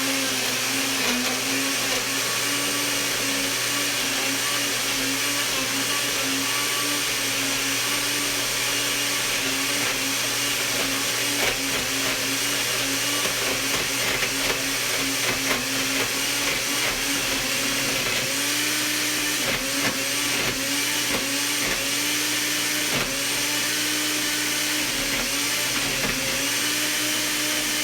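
Countertop blender running on its smoothie/ice-drink setting, crushing ice with blackberries, yogurt and water. Its motor whine holds steady at first; from about two-thirds of the way through, the pitch repeatedly dips and recovers, about once a second.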